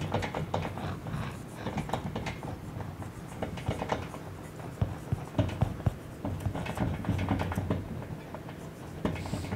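Dry-erase marker writing on a whiteboard: a run of short, irregular squeaks and scratches as words are written, over a steady low hum.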